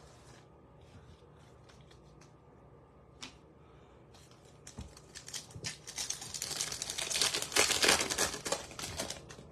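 A foil Topps Chrome trading-card pack being crinkled and torn open. Dense crackling and rustling starts about five seconds in and is loudest near the end. Before that there is only faint handling of the packs.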